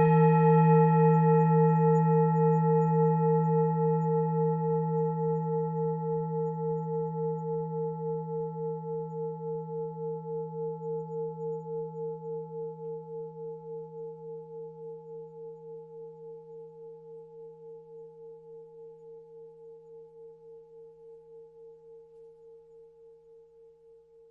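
Tibetan singing bowl ringing out after a strike. Its layered tone fades slowly over more than twenty seconds with a steady pulsing wobble.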